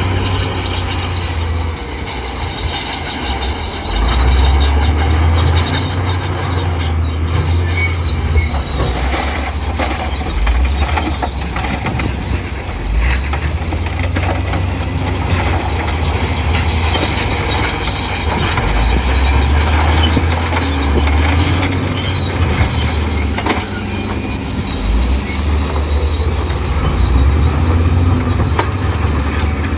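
Crawler bulldozer working: the heavy diesel engine runs with a low rumble that swells and eases under load, and the steel tracks squeal now and then.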